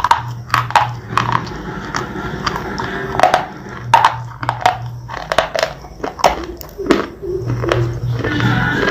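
A crunchy white SP bar being bitten and chewed close to the microphone: a fast, irregular string of sharp crunches.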